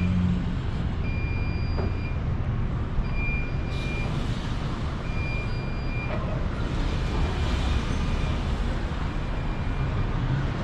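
Vehicle backup alarm beeping: a steady high beep repeating about once every second and a half, over the constant rumble of vehicle engines and traffic.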